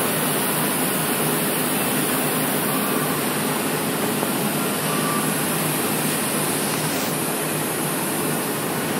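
Steady, even roar of foundry machinery, with a faint low hum and no distinct knocks or clanks.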